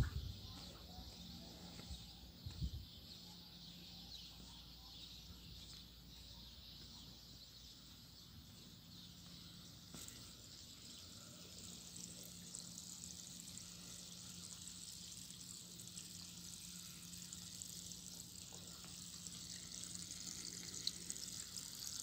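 Faint outdoor ambience: a steady high hiss with a faint low hum, growing a little louder in the second half, and a couple of faint taps two to three seconds in.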